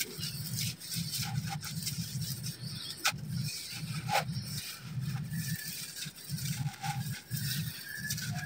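Hands crushing and crumbling a dried red sand-and-dirt chunk over loose red gravel: gritty crunching with a few sharp cracks about three and four seconds in.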